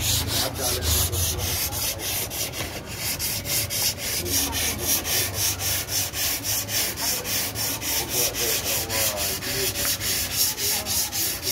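Dry hand sanding of body filler on a car door panel: sandpaper rubbed back and forth by hand in rapid, even strokes, each stroke a rasping hiss.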